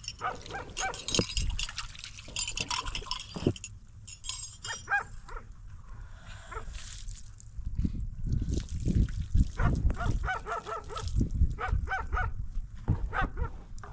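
Animals calling several times in short pitched cries, over a low rumble that grows stronger about halfway through.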